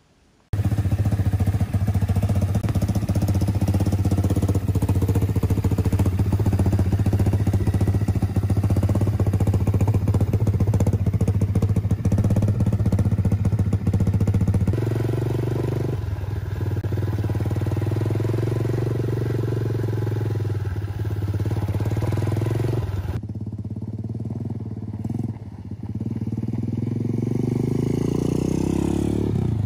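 A Power Wheels Jeep go-kart's 200cc single-cylinder four-stroke engine running through its muffler. It starts suddenly about half a second in and holds a steady low pitch, changes abruptly twice as the kart is driven, and rises in pitch near the end as the engine is revved.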